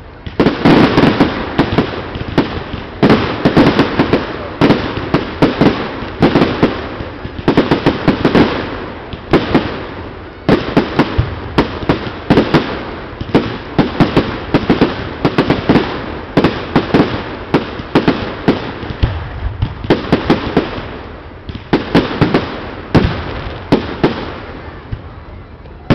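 Aerial firework shells bursting in a dense, fast barrage, several loud bangs a second, keeping up without a break.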